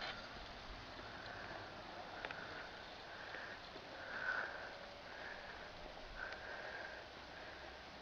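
Faint breathing through the nose close to the microphone: short sniff-like puffs about once a second over a low hiss.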